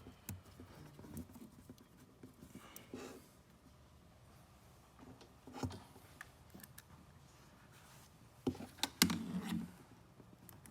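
Hands fitting a cord clamp back onto a power cable: scattered small clicks and rustles, a louder click about halfway and a quick cluster of clicks near the end.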